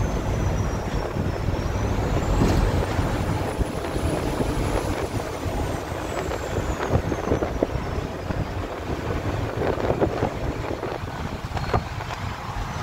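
Cab noise of a Peterbilt truck on the move: its diesel engine and the road give a steady low rumble.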